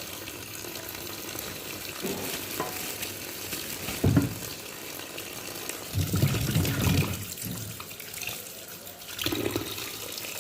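Tap water running steadily into a kitchen sink as vegetables are rinsed. Handling knocks and thuds come every couple of seconds, the longest a little past halfway.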